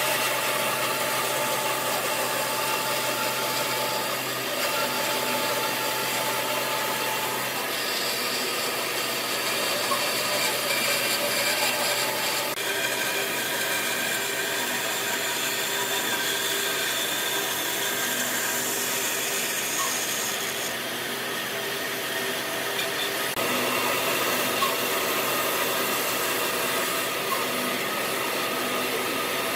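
A power tool working wood, running steadily with a motor hum under the noise of the cut. Its tone changes abruptly several times along the way.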